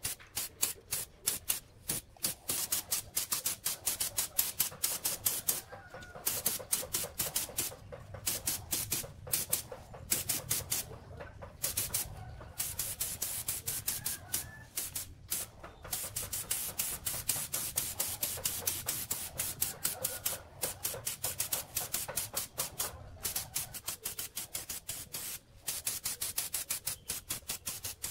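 Compressed-air paint spray gun hissing in rapid short bursts, several a second, with a few brief breaks, as paint is sprayed onto metal.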